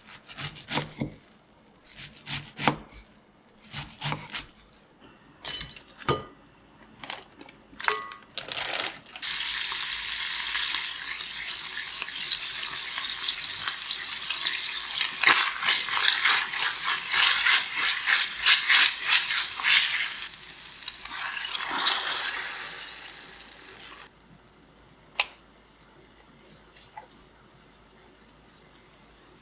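Kitchen work: dishes and utensils clinking several times, then a loud steady hiss that lasts about fifteen seconds and stops, followed by a few faint clicks.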